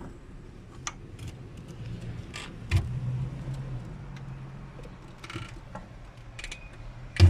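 Scattered mechanical clicks and knocks with a low hum in the middle, and one loud knock near the end.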